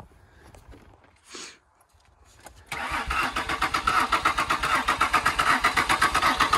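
Starter motor cranking a Ford Escape's engine, beginning about three seconds in, with an even pulsing rhythm of about five to six beats a second. The engine turns over without catching.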